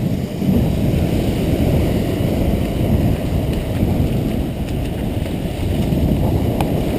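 Wind buffeting the microphone over shallow surf washing up the sand: a steady, low rush with no clear rhythm.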